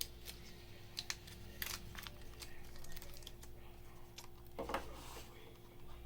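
Faint, irregular small clicks and taps of tools and tiny parts being handled on a phone being taken apart, over a steady low hum.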